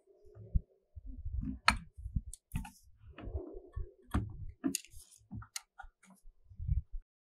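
Close handling noises as a rusty screwdriver part on thin wire is lowered into a bucket of electrolysis solution and a wooden stir stick is set across the bucket: a string of sharp clicks and light knocks mixed with short low thumps. The sounds stop abruptly near the end.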